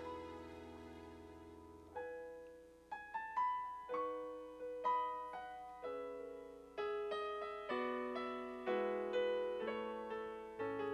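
Solo piano playing a slow, quiet passage: a held chord fades away, then single notes and chords are struck one to two a second, each ringing out. It is the instrumental lead-in to the next worship song.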